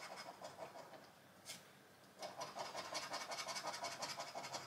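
Scratch card coating being scraped off with quick, rapid strokes. About a second in it pauses, with a single tick, then the fast scratching starts up again.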